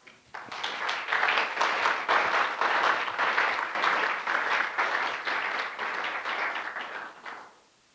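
Audience applauding at the end of a lecture, many hands clapping: it builds within the first second, holds steady for about six seconds, then dies away near the end.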